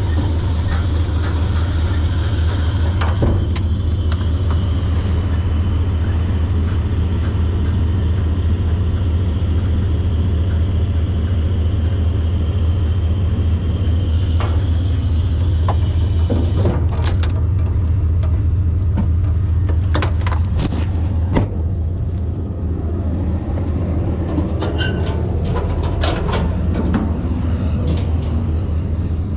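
Vehicle engine running steadily with a low rumble. From about halfway through, scattered knocks and cracks.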